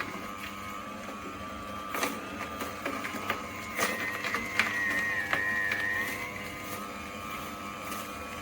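AMZCHEF cold-press slow juicer running, its motor giving a steady whine, with scattered sharp clicks and cracks and a higher squeal from about four to six seconds in.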